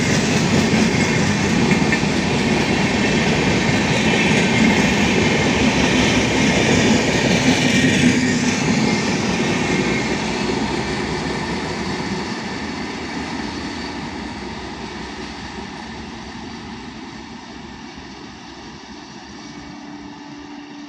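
LHB passenger coaches of an Indian Railways express rolling past on the rails, a loud steady rumble and rattle of wheels on track. From about eight seconds in it fades away steadily as the end of the train recedes.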